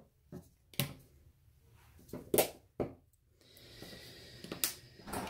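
A few light, sharp clicks and knocks, about three of them, from paint bottles and cups being handled and set down on a tabletop.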